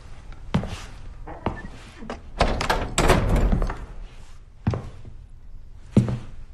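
Heavy wooden door being opened and banging shut: separate dull thuds and knocks, with a dense clatter of knocks in the middle that is the loudest part.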